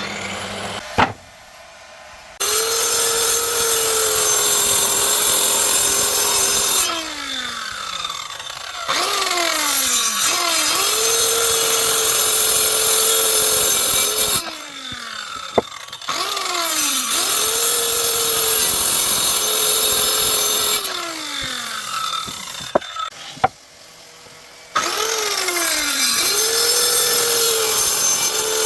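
Electric woodworking power tool running at full speed through wood in runs of several seconds, its whine falling away as it winds down each time it is switched off, then starting again; a few sharp knocks in the pauses.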